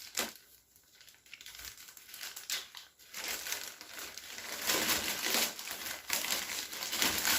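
Parcel packaging being handled and opened: crinkling and tearing, with a few faint clicks at first and then steadier, louder crinkling over the last few seconds.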